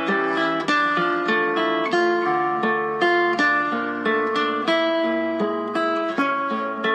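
Background music: an acoustic guitar picking a steady melody, about three plucked notes a second.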